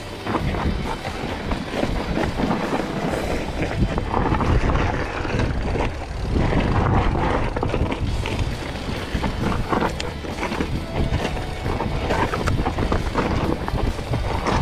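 Mountain bike rolling fast down a dirt singletrack: knobbly tyres crunching over dirt and stones and the bike rattling over bumps, with wind buffeting the camera's microphone.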